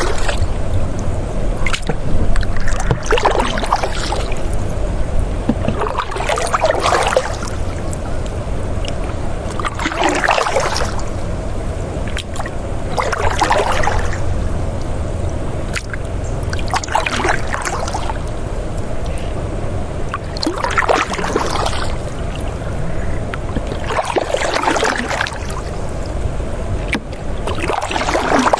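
River water flowing over a steady low rumble, with a washing surge of water about every three and a half seconds.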